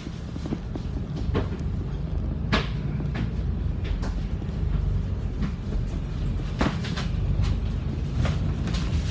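Cabin ride noise of a MAN ND323F double-decker bus pulling away from a stop: a steady low engine and road rumble with scattered short knocks and rattles.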